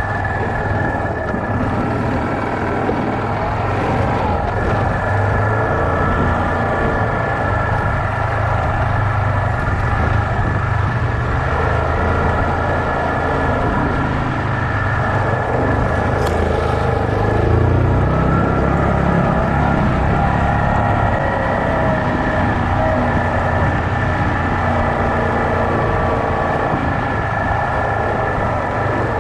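Yamaha Kodiak 450 ATV's single-cylinder four-stroke engine running steadily while riding a dirt trail, picking up briefly a little past halfway.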